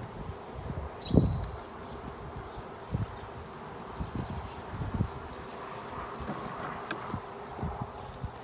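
Honeybees buzzing around an opened hive during a frame inspection: a faint, steady hum, with scattered low knocks on the microphone, the loudest about a second in.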